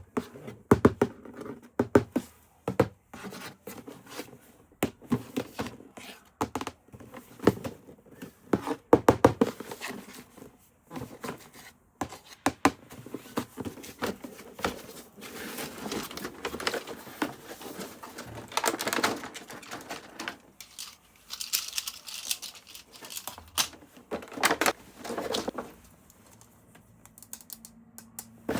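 Hands handling toy packaging: quick irregular clicks and taps of plastic and cardboard, then longer stretches of crinkling and rustling about halfway through.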